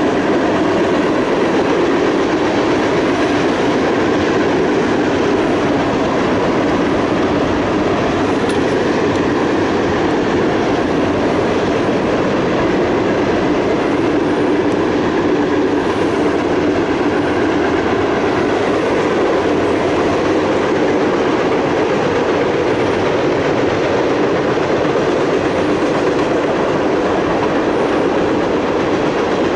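Freight train of tank cars rolling past, a steady rumble of steel wheels on the rails.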